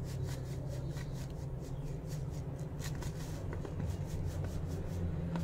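Light scratching and rubbing with many small irregular ticks: dried grated coconut being worked into ground spice paste in a stone mortar.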